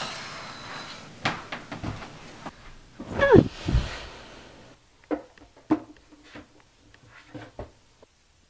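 Door and movement noises: a few knocks and clicks as a door is handled, then a loud sound falling steeply in pitch about three seconds in as someone drops onto a bed. A few short, faint squeaks follow.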